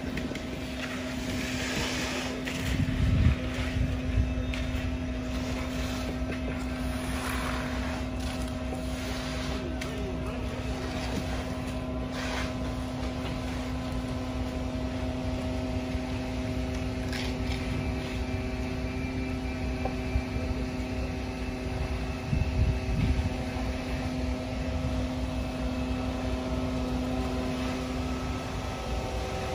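Concrete mixer truck running with a steady, even engine hum while its drum discharges concrete down the chute. A few short, noisy sounds come in the first dozen seconds.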